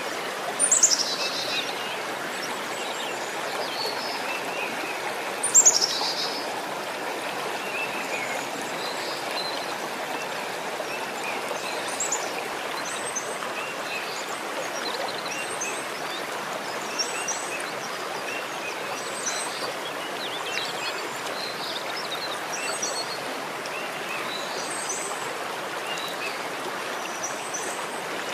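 Steady rush of running water with small birds chirping throughout. Two louder high calls sweep downward, one near the start and one about five seconds in.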